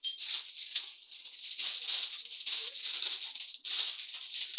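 Clear plastic packaging bag crinkling and rustling as it is handled, in uneven swells.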